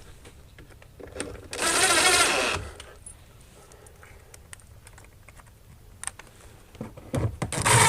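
Cordless power drill driving drywall screws into wood: two short whirring runs of about a second each, one about one and a half seconds in and one near the end, with light tool handling clicks between.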